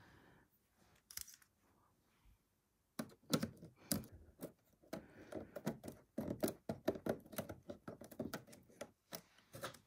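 A slim metal tool clicking, tapping and scraping against the soft lead frame and small glass panes of a dolls house window as the glass is prised out, in a quick irregular run of small clicks starting about three seconds in.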